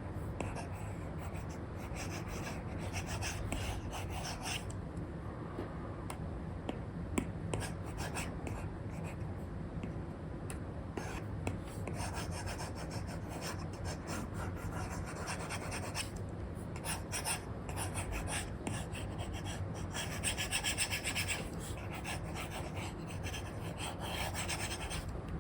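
Apple Pencil with an Elecom nib scratching across a paper-like screen film on an iPad: steady short rubbing strokes of sketching, with a brighter, quicker run of strokes about twenty seconds in.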